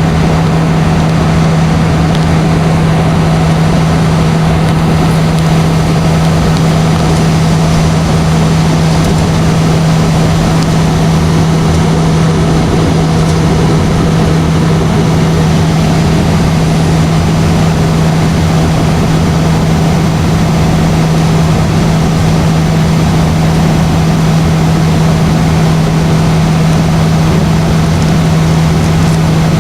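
Steady airliner cabin noise on the landing approach: the engines and rushing air make an even drone, with a strong, steady low hum over it.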